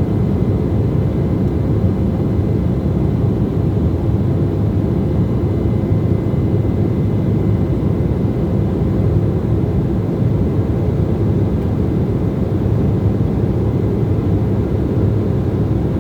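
Jet airliner cabin noise in flight shortly after takeoff: a steady low rumble of engines and airflow with a faint steady hum above it.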